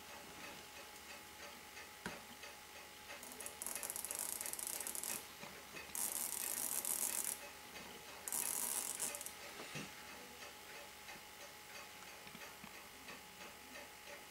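Seiko 6217 automatic watch movement ticking faintly, with three bursts of fine, rapid ratcheting clicks, each a second or two long, as it is wound by hand. The movement keeps stopping, which the repairer blames on an over-long case screw protruding into it.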